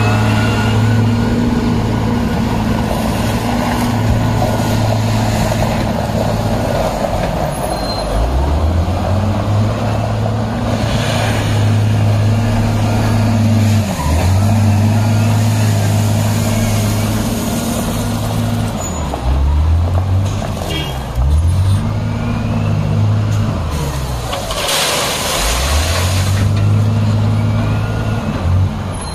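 Diesel engine of a Hindustan wheel loader working close by, its note dropping and rising again several times as the loader scoops and lifts crushed stone. A few bursts of hiss stand out, the loudest near the end.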